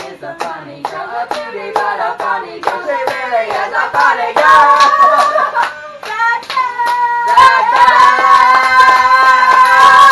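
Several people singing together while clapping a steady beat, about two claps a second. From about seven and a half seconds in, the voices hold a long, loud note together.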